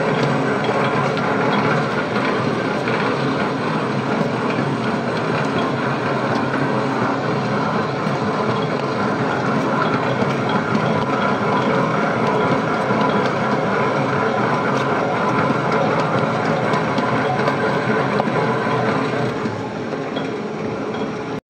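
Electric stand mixer running, its motor and gearing droning steadily as the dough hook kneads bread dough in a stainless steel bowl; a little quieter near the end.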